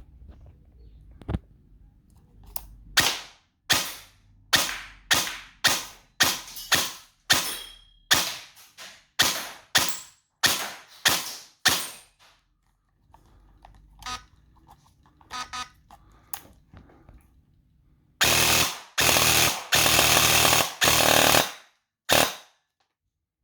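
Upgraded airsoft electric gun firing a string of about fifteen single shots, roughly two a second. After a few faint clicks it fires several dense full-auto bursts, at a rate of fire near 37 rounds a second, then one more single shot near the end.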